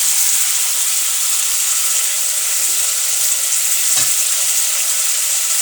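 Boiled beef tripe sizzling steadily as it fries in a little cooking oil in a pan, with a light knock about four seconds in.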